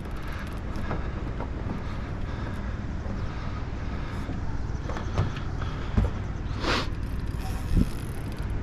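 Steady low running hum of the jon boat's motor, with a few light knocks on the aluminium hull.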